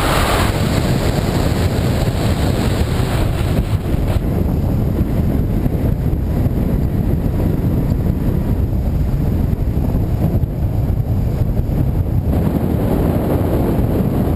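Airflow from a paraglider's flight buffeting the camera microphone: a loud, steady, low rush of wind with no engine note.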